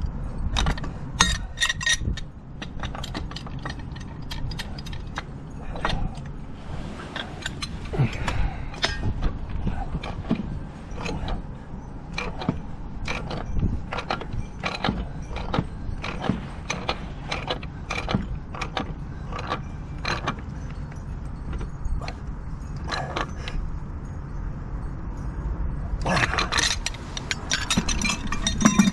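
Pipe wrench working a threaded steel fitting at a gas service regulator: repeated metal clicks and scrapes as the jaws bite and are reset. Near the end, a quick run of sharp metallic clinks as the steel riser bracket and bolts are handled.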